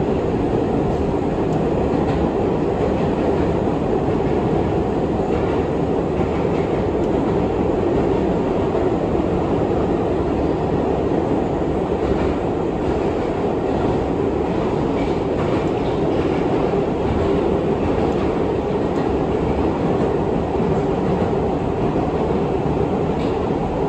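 R62 subway car running along the track, heard from on board: a steady, even noise of wheels on rail and running gear that holds without a stop or a change in pace.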